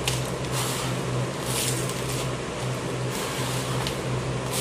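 Hands scooping and crumbling dry soil on newspaper and dropping it into a plastic-bottle planter: intermittent rustling and gritty crunches over a steady low hum.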